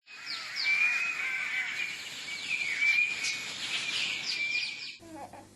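Birds chirping: many short downward chirps over steady background noise, cut off abruptly near the end.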